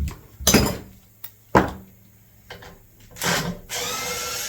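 Hand tools clanking and scraping on metal engine parts while a stuck bolt is worked out. Two sharp knocks come in the first couple of seconds, then a longer grinding scrape near the end.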